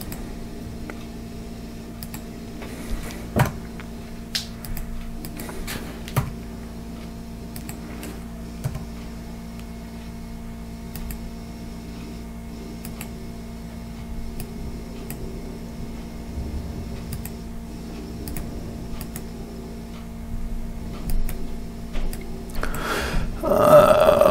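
Typing and clicking at a computer: irregular, scattered key taps over a steady low hum. A louder, denser stretch of sound comes near the end.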